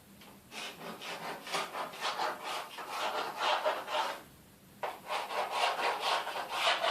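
Pencil being drawn around a panel's outline onto a window frame: quick, repeated scraping strokes in two runs, with a short pause between.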